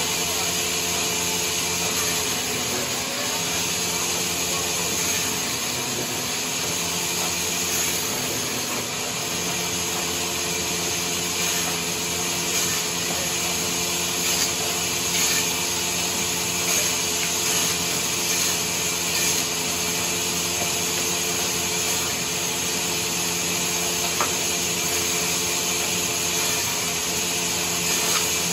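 Sawmill saw running steadily and cutting timber: a continuous loud machine noise with a steady hum underneath and no break.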